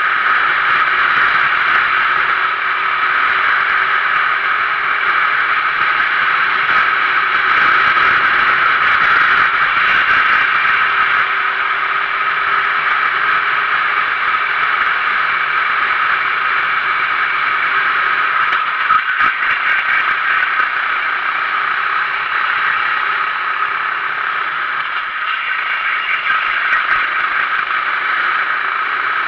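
Sodi RT8 kart's 390cc engine running steadily at racing speed, picked up by a camera mounted on the kart itself, with a single short knock about two-thirds of the way through.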